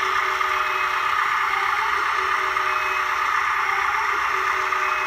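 Battery-powered CAT toy forklift making a steady mechanical whirring while its forks rise, with no change in pitch or level.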